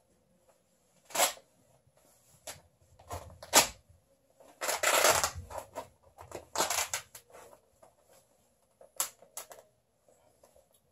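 Worn-out trousers pulled and torn apart by hand: a series of short ripping and rustling bursts of cloth, the longest about five seconds in and two brief ones near the end.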